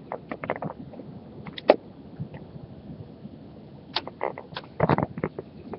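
Rainstorm and wind heard through an open window: a steady hiss with scattered irregular knocks and clicks. One sharp knock comes about a second and a half in, and a cluster of them falls near the end.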